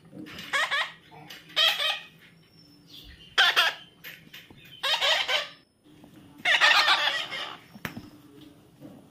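Young parrot squawking: about five harsh, loud calls, each under a second long, coming roughly every one and a half seconds, the last one longer.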